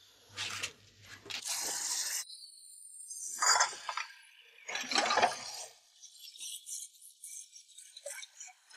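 Several short clinks and clatters, like crockery or glass being handled, a second or two apart, followed by faint small clicks near the end.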